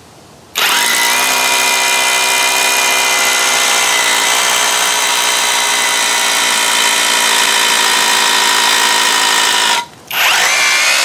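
Cordless hammer drill in hammer mode boring into a concrete block: a loud, steady motor whine starts about half a second in, cuts out briefly near the end, then starts again. It cuts much faster than in plain drill mode.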